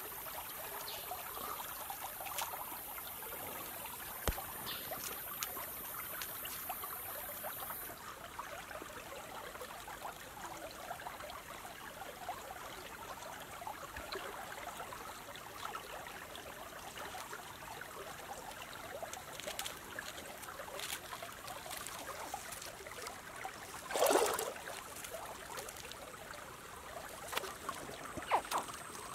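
Steady trickle of running water. A high steady hiss cuts off about eight seconds in, and there is one short loud rustle near the end.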